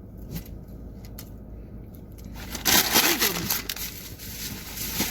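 Crinkling, rustling handling noise that starts about two and a half seconds in and lasts a second or two, after a quieter stretch with a few faint clicks.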